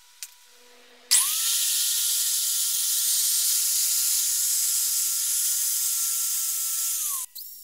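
Angle grinder spinning up about a second in and grinding the edge of a small sheet-metal piece: a loud grinding hiss over a steady high motor whine. Near the end the whine drops as the grinder winds down, and the sound cuts off.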